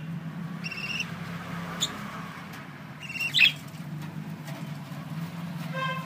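Budgerigars calling: a few short, high chirps and squawks, the loudest and sharpest about halfway through. A steady low hum runs underneath.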